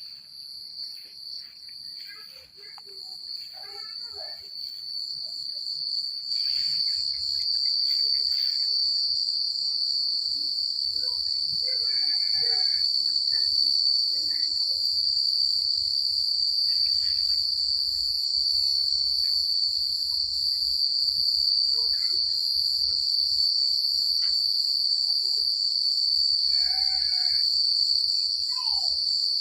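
Crickets chirping in a dense, continuous high-pitched trill. The chorus grows louder over the first six seconds or so, then holds steady, with a couple of faint short calls lower down about twelve seconds in and near the end.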